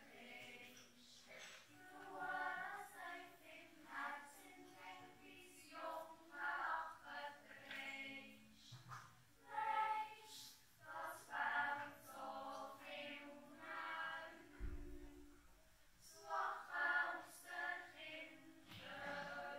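Children's yodel choir singing unaccompanied, in phrases with short pauses between.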